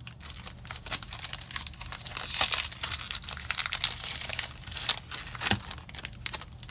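Foil wrapper of a Magic: The Gathering booster pack crinkling as it is torn open and handled, a dense crackle that swells twice.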